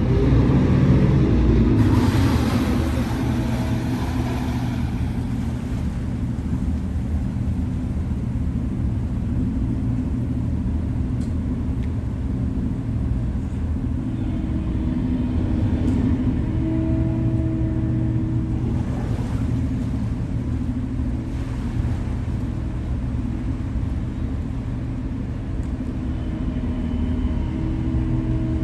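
Large yacht's diesel machinery running at low speed during a slow manoeuvre out of a berth: a steady low rumble with several steady hums, and a louder rushing surge in the first few seconds.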